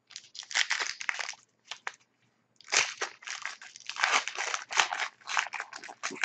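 Plastic wrapper of a hockey card pack crinkling and crackling as hands struggle to tear the stubborn pack open, in irregular bursts with a short pause about two seconds in.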